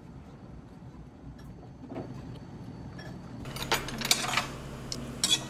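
Low steady room hum, then from about three and a half seconds in, a run of clinks and clatters of dishes and cutlery at a meal table.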